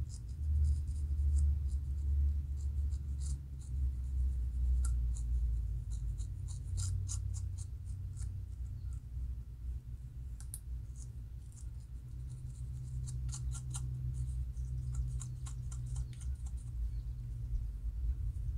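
Fine-toothed metal comb scratching across a dry, flaky scalp between locs, lifting dandruff, in quick runs of short raspy strokes with a lull in the middle. A steady low rumble runs underneath.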